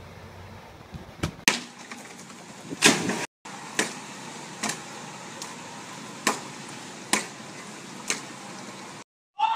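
A few knocks, then a springboard diving board knocking in a steady rhythm, about once a second, six times, as someone bounces on its end.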